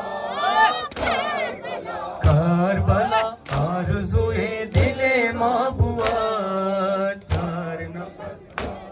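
A Persian-language noha (Shia mourning lament) being sung, with a steady beat of sharp slaps: mourners beating their chests (matam) in time with the recitation.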